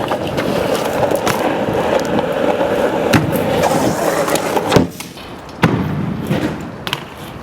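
A BMX bike rolling on hard ground, a steady rumble of the tyres, broken by sharp knocks about three seconds in and twice around five seconds in. The loudest knock comes near five seconds, after which the rolling noise drops away.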